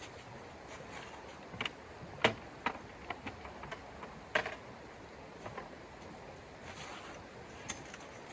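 Irregular light clicks and knocks, a few seconds apart, over a steady low hiss; the sharpest knocks come about two and four seconds in.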